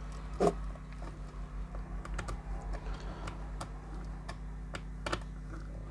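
Scattered small clicks and taps from handling a data cable and pushing its plug into the input of an LED signal splitter box, with a louder click about half a second in and another near the end. A steady low hum runs underneath.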